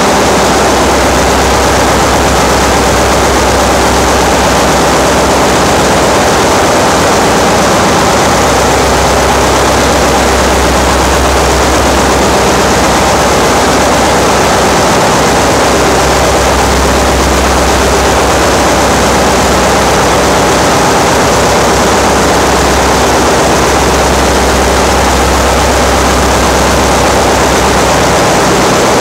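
Loud, steady machinery noise of a ship's engine room, a dense running din with a low drone underneath that swells and eases every few seconds.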